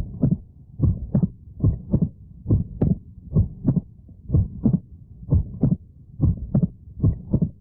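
Recorded heart sounds in a steady lub-dub rhythm of about 70 beats a minute. Each beat is a pair of short low thuds, with a faint steady hiss between the beats.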